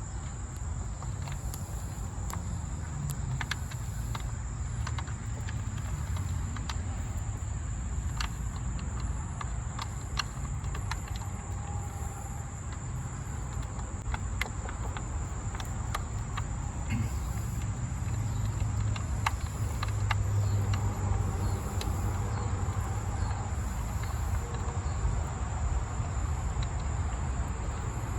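Insects trilling steadily at a high pitch, with scattered light clicks of small parts and tools being handled over a low background rumble that grows stronger in the second half.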